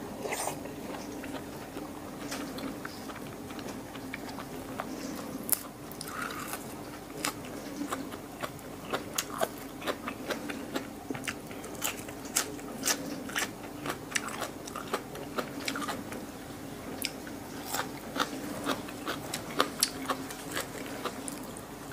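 Close-up chewing of raw beef liver with fresh herbs: wet, sticky mouth clicks and smacks, with many sharp clicks through the second half. A steady low hum from a running dishwasher sits underneath.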